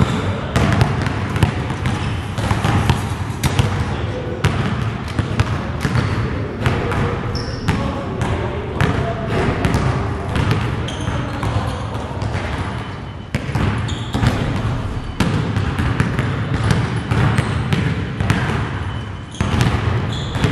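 Basketballs bouncing and being dribbled on a gym floor: many irregular thuds, overlapping.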